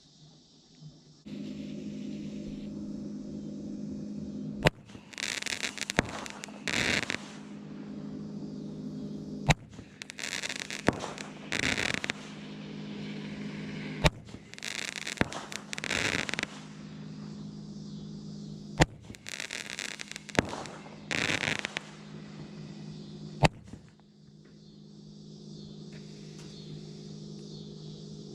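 A Black Cat Roman candle firing five shots, a sharp pop about every four to five seconds, each followed by a couple of seconds of loud fizzing as the effect burns. A steady low hum runs beneath until near the end.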